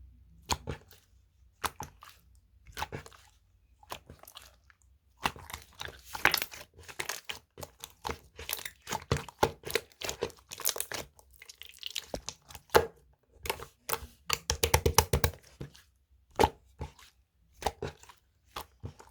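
Homemade slime being squeezed and pulled by hand, giving off irregular runs of sticky crackles and pops with short pauses between them.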